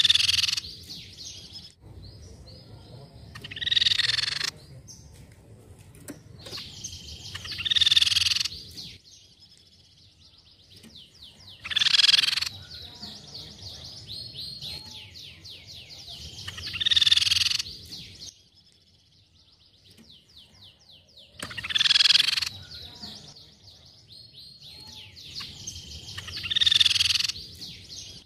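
Crescent-chested babbler (tepus pipi perak) calling: a loud burst of notes about every four to five seconds, with a softer, fast rattling trill running between the bursts.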